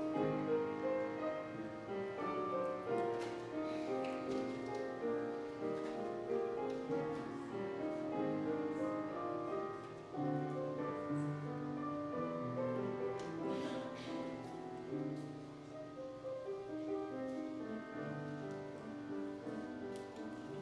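Solo piano playing an instrumental offertory piece, sustained notes and chords with a moving melody.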